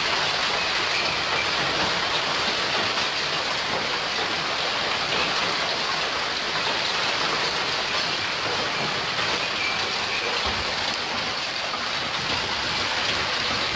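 Hailstorm: hail and rain pelting the street and parked cars in a dense, steady hiss and patter that does not let up.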